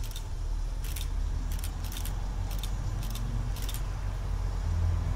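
Railmotor RM1901, a 1900 class diesel railmotor, approaching slowly with a steady low engine rumble. A series of sharp metallic clicks comes through it every half second or so, then stops near the end.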